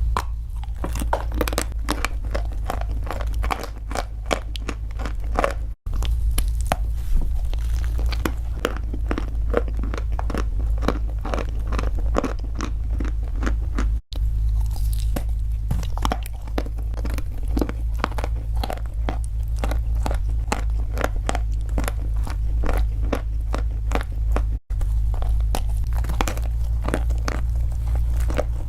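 Close-up chewing and biting of crunchy food: a dense run of crisp crunches over a steady low hum. The sound cuts out briefly three times.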